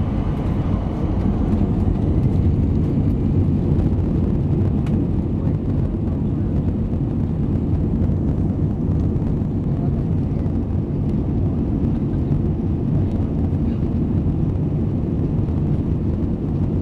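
Jet airliner on its takeoff roll, heard from inside the passenger cabin: engines and wheels on the runway make a steady, heavy low rumble.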